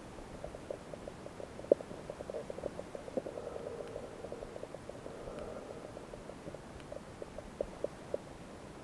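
Underwater ambience in a rocky tide pool: irregular muffled clicks and crackles over a soft wash of water noise that swells a little in the middle, with one sharper click about two seconds in.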